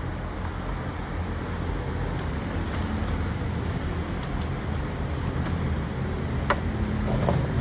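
Steady low rumble with a hum, like background traffic or a running motor, with a sharp click about six and a half seconds in.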